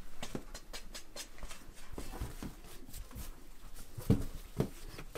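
Bread dough being scraped out of a mixing bowl onto a metal counter and kneaded by hand: a run of irregular soft thumps and pats, the two loudest about four seconds in.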